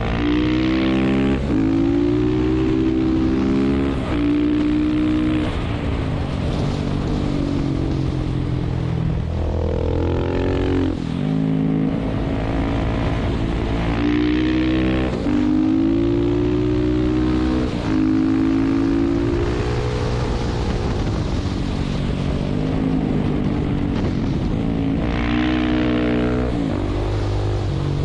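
KTM 690 SMC's single-cylinder engine under hard riding, revving up and dropping in pitch again and again as the rider shifts and rolls on and off the throttle through the bends, with one deeper dip about ten seconds in. A steady rush of wind runs beneath it.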